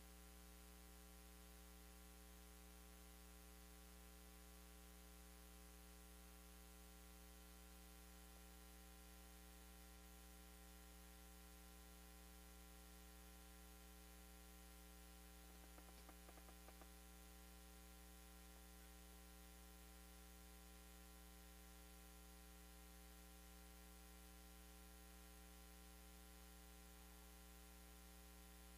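Near silence: a steady electrical hum, with a few faint clicks about halfway through.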